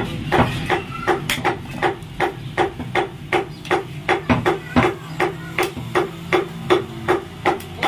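Heavy butcher's cleaver chopping goat meat and bone on a wooden log block, in quick, evenly spaced strokes of about four a second.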